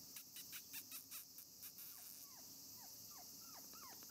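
Shiba Inu puppy whimpering: faint high squeaks that slide downward, two or three a second, from about halfway through. Before that comes a quick run of short, sharp chirps, the loudest part.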